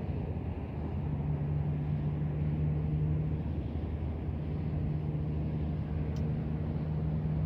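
A steady low engine drone holding one pitch, with a short faint click about six seconds in.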